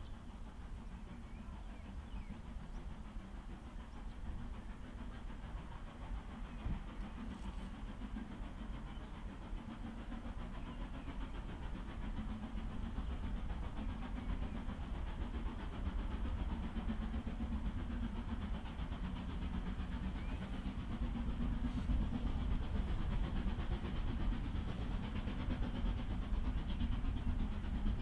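Steam locomotive hauling a train, approaching with a low rumbling sound that grows steadily louder.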